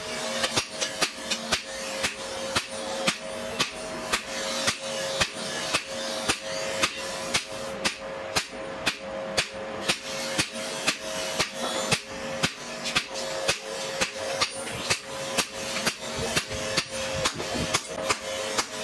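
Hand hammer forging a red-hot leaf-spring steel knife blade on an anvil: a steady run of sharp metal-on-metal blows, about two to three a second, with the anvil ringing on between them.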